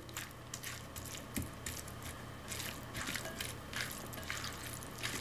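Silicone spatula stirring and folding a wet tuna, tomato and onion salad in a bowl: an irregular series of soft, wet squishes and scrapes, a few a second, over a low steady hum.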